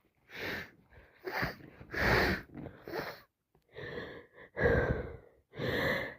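A woman with a congested head cold gasping and sniffling: about seven short, breathy, wet-sounding breaths in a row, each under a second.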